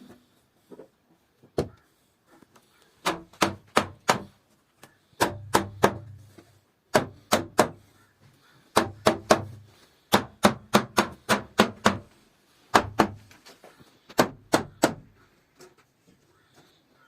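Hammer blows on wood, sharp knocks in quick runs of a few strikes at a time, about three to five a second, with pauses between runs.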